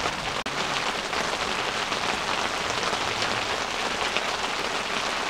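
Steady rain falling on the tent: an even hiss with scattered drop ticks.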